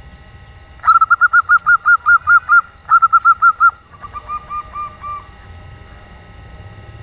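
Female zebra dove (perkutut) calling: a fast run of short, evenly spaced cooing notes, about five a second, beginning about a second in. A brief pause follows, then a shorter run, then a fainter, lower-pitched run. This is the female's call, which draws males to sing.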